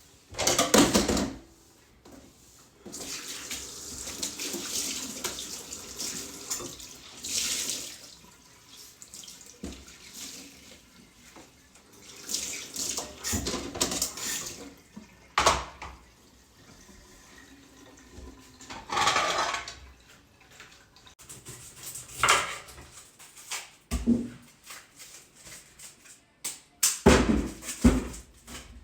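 Water running from a kitchen tap into a sink, turned on and off in several spells, with occasional knocks and clatter from the sink.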